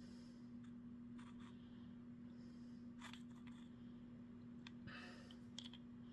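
Near silence: a steady low hum with faint rustles and a few light clicks of fingers handling a small stone.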